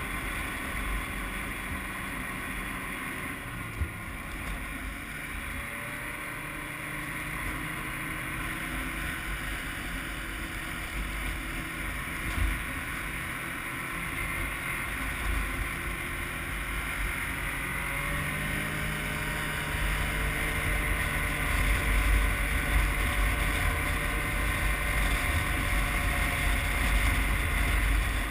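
Snowmobile engine running steadily while riding, its pitch drifting slowly up and down, with wind buffeting the microphone. It grows louder in the last third.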